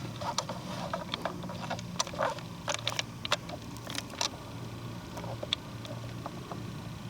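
Footsteps on a forest trail picked up by a handheld camera: irregular crunches and clicks, several a second, over a low steady rumble.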